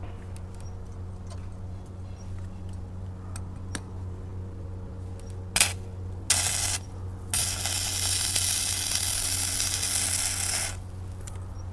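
Stick (arc) welding: the arc is struck twice briefly about halfway through, then held for about three and a half seconds before it breaks off suddenly. A steady low hum runs underneath.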